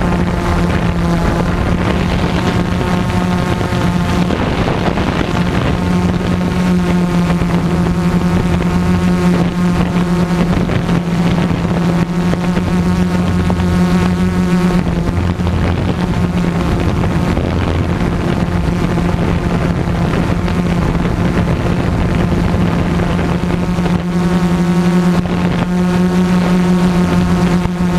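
Multirotor drone's motors and propellers buzzing steadily, a loud droning hum that holds nearly the same pitch throughout.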